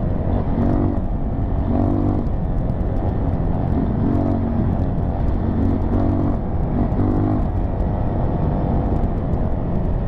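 Dirt bike engine running under way, its note rising and falling every second or so with the throttle over a steady low drone.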